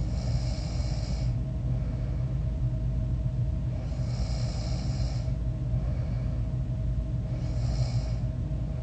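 A person snoring in their sleep: three snoring breaths, roughly one every four seconds, over a steady low hum.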